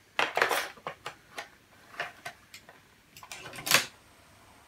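Plastic 8-track cartridge clattering in the hands and being pushed into the Hitachi TRQ-134D deck's slot: a run of clicks and knocks, with the loudest clunk near the end as the cartridge seats.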